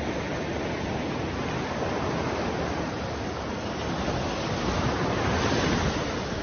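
Sea surf breaking and washing up a sandy beach: a steady rushing, swelling louder for a second or so a little past the middle.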